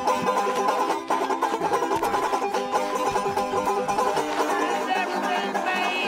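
Banjo picked fast in a banjo duel: a quick, unbroken run of bright plucked notes.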